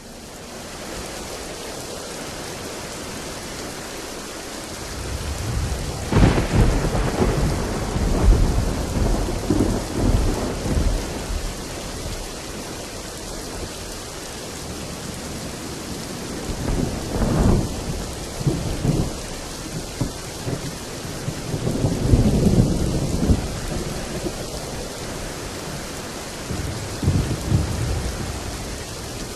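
Steady heavy rain with rolls of thunder: a long rumble from about five seconds in, then shorter rumbles three more times.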